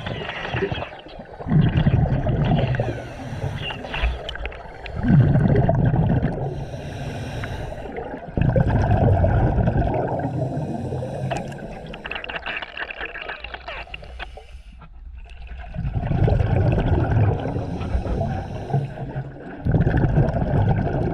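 Underwater gurgling and bubbling heard through an underwater microphone, coming and going in stretches of a few seconds with a quieter lull about two-thirds of the way through. The uploader takes these sounds for turtles talking to each other.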